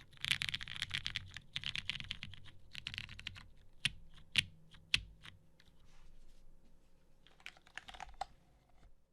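Mechanical keyboard with lubed vintage Cherry MX Brown switches in an aluminium plate, under GMK keycaps, being typed on. Fast continuous typing for about three and a half seconds gives way to a few single, louder key strikes, then slower scattered taps, and a short flurry near the end before the typing stops.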